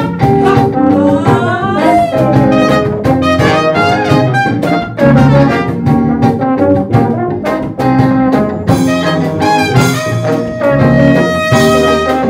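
Live band playing Colombian music: trumpet and a large low brass horn over electric guitar, electric bass and drums, with a rising glide about a second in.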